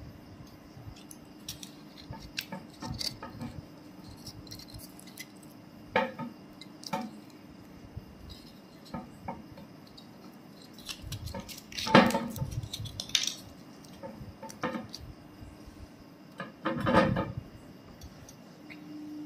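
Handling a glass whisky bottle with a wooden-topped cork stopper and a torn foil seal: scattered light clicks, taps and knocks of glass, cork and foil, with two louder clatters in the second half.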